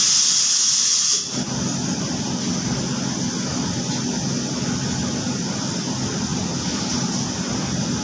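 Steady drone of machinery running, with a loud hiss that starts at once and cuts off suddenly after about a second.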